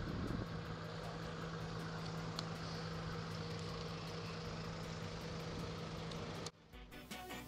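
Engine idling steadily. It cuts off abruptly about six and a half seconds in, and music begins just before the end.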